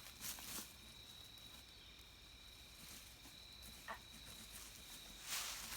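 Quiet woodland ambience with a faint steady high tone throughout. A short falling chirp comes about four seconds in, and a brief rustle near the end.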